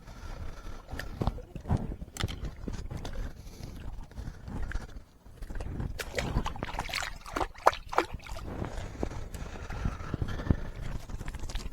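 Irregular clicks and knocks, as of gear being handled, over a steady low rumble.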